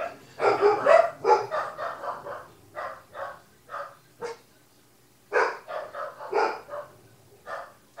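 African grey parrot calling in a string of short, quick calls, a close run of them first, then single calls and another short run.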